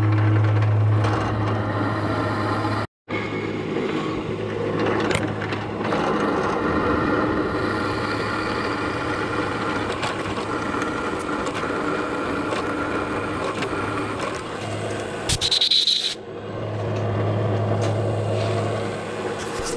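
An electric tool's motor running with a steady low hum that drops out and returns, over a scraping, grinding noise of work on a part, with a short high-pitched burst about fifteen seconds in.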